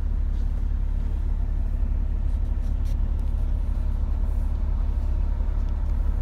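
Steady low rumble of a vehicle's engine and road noise heard from inside its cabin while it moves slowly.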